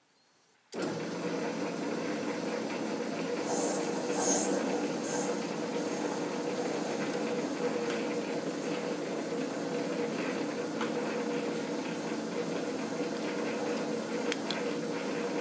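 Metal lathe running under power while a carbide threading insert chases an M50 x 1.5 thread on a steel workpiece: a steady gear-train hum with a hiss of cutting that comes and goes. It starts abruptly just under a second in.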